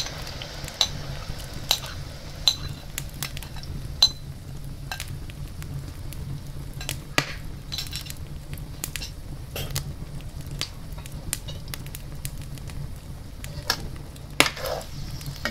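Blended shallot, garlic, ginger and onion paste sizzling in a hot, oiled non-stick wok, with a utensil clicking and scraping against the pan at irregular moments as it is stirred.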